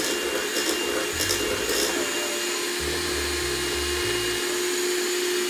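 Electric hand mixer running steadily, its beaters whisking a runny Yorkshire pudding batter in a stainless steel bowl: a constant motor whir with a steady hum.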